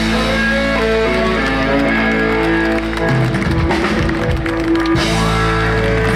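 Rock band playing live and loud on electric guitars, bass guitar, drums and keyboard. About five seconds in, the band settles onto a long held chord.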